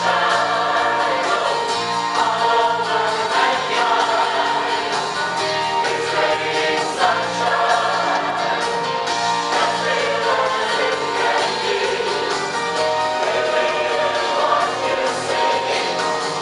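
Mixed choir of men's and women's voices singing an upbeat song together, continuously and without a break.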